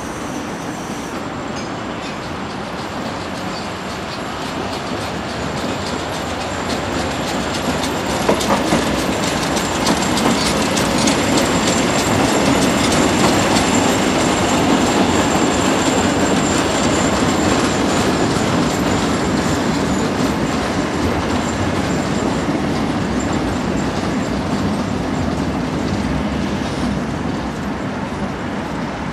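Narrow-gauge steam train passing close by: the small locomotive and its coaches running over the track, wheels clicking at the rail joints, growing louder for the first several seconds and easing off slightly toward the end. A thin high wheel squeal sits over it in the middle.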